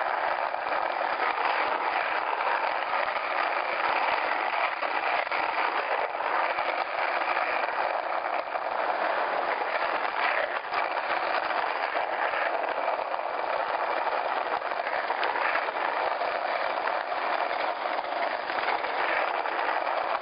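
Steady rushing noise of wind and road while riding a bicycle at speed, with no clear changes.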